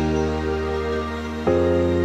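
Background music of slow, sustained chords, with a new chord coming in about one and a half seconds in.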